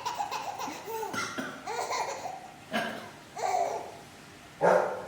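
A three-month-old baby laughing in short repeated bursts, set off by a man's sudden coughs, the loudest about four and a half seconds in.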